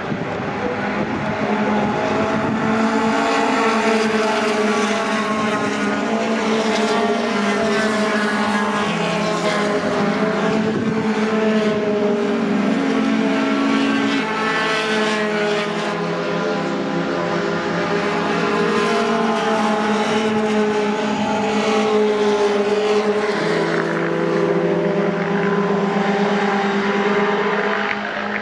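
Several racing pickup truck engines running hard at high revs, with overlapping engine notes that rise, fall and step with gear changes as the trucks race past.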